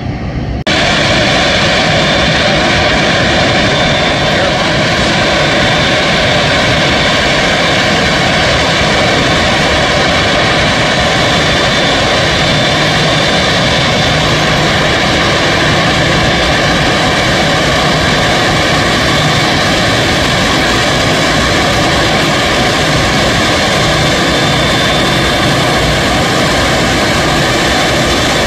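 Boeing 787 jet engines running steadily: a continuous rush of noise with a fixed whine. It cuts in abruptly about a second in and then holds at an even level.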